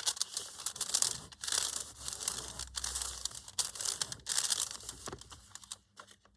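Paper crinkling and rustling in irregular scratchy bursts as journal pages are handled, dying away near the end.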